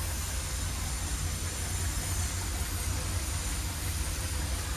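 Alco diesel locomotive hauling a passenger train, its engine running with a steady low rumble.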